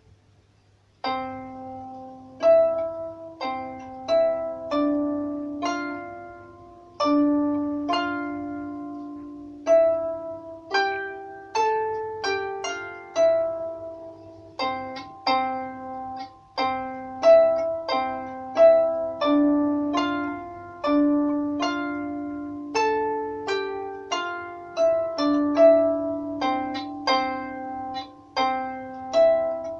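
A 19-string Celtic harp played by hand: a slow melody of plucked notes that ring on over lower bass notes, starting about a second in after a brief pause.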